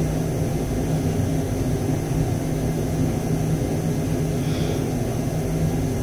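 Steady low mechanical drone of machinery running, an even hum that does not change.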